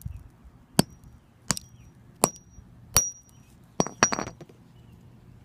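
A hammer striking a black rock six times, sharp blows about three-quarters of a second apart, each followed by a brief high ring.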